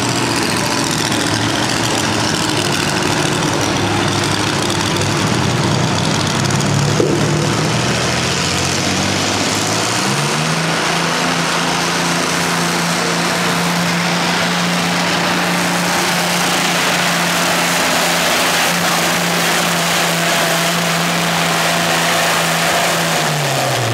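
A pulling tractor's engine running at full revs under load as it drags a weight-transfer sled down the track. The pitch climbs steadily for about the first ten seconds, holds flat for most of the rest, and drops away near the end as the pull finishes.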